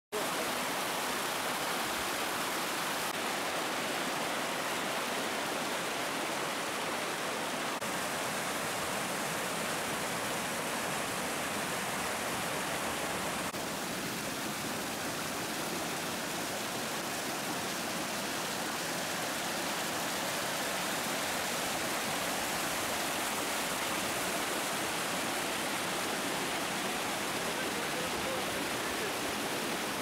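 Small waterfall, a stream of white water tumbling over rocks, giving a steady, even rush that shifts slightly in tone a few times.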